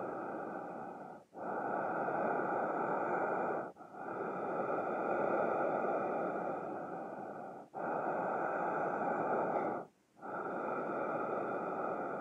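A person breathing heavily and slowly from inside a cloth shopping bag: long, drawn breaths in and out, each lasting two to four seconds, with short pauses between them.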